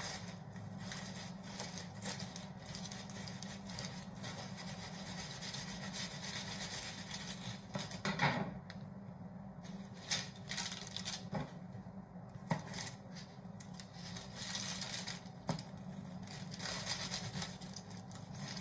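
A knife sawing through the crisp, flaky baked puff-pastry crust of a beef Wellington: crackling and scraping, with a few sharper cracks of the crust.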